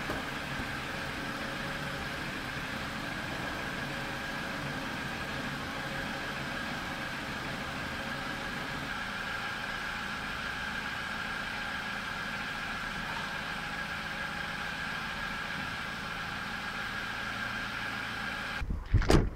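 Car engine idling steadily, with a steady high tone over it. Near the end it cuts off, and a few loud knocks follow.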